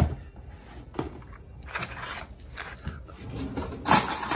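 Handling noises on a kitchen counter: a sharp knock at the start and another about a second in, then crinkling of stiff butcher paper, loudest near the end as a hand reaches onto it.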